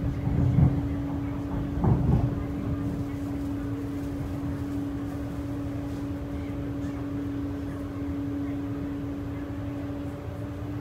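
An MTR East Rail line R-train electric multiple unit running, heard from inside the carriage: a steady low running rumble under a constant motor hum. Two brief louder knocks come about half a second and two seconds in.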